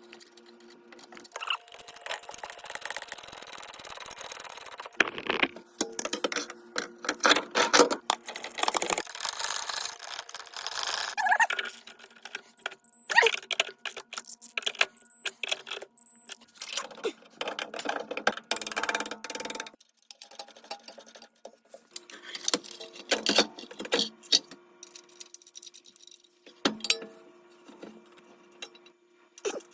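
Hand tools working on a car's front suspension: irregular metallic clicks, clinks and knocks with stretches of scraping, over an intermittent low steady hum.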